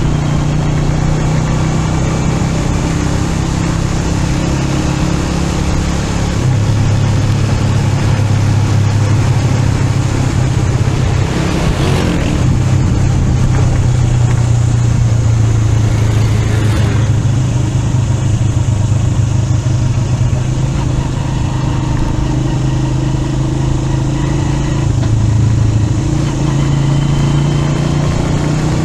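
Motor vehicle engine running continuously under road noise, its low note shifting in steps a few times.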